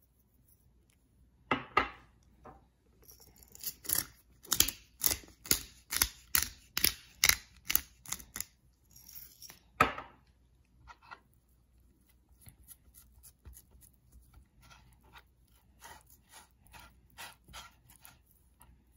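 Hand-twisted pepper mill grinding black peppercorns, a run of sharp ratcheting clicks at about two a second. A single loud knock comes about ten seconds in, followed by a fainter run of similar clicks.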